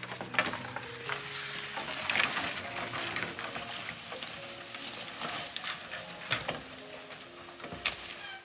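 Food sizzling in a hot pan while it is stirred, with scattered clicks of the utensil against the pan, over soft background music.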